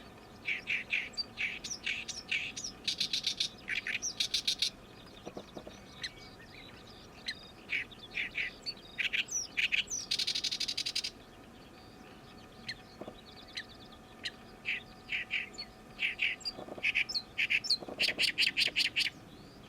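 Oriental reed warbler singing its loud, harsh 'gyo-gyo-shi' song: quick runs of scratchy, chattering notes broken by short pauses, with a few longer buzzy rattles.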